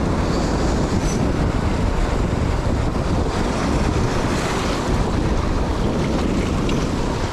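Steady, strong wind rumbling over the microphone, mixed with sea waves washing against a rocky shore.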